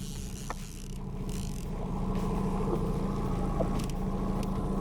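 Boat motor running steadily while trolling, a steady hum that grows a little louder about a second and a half in.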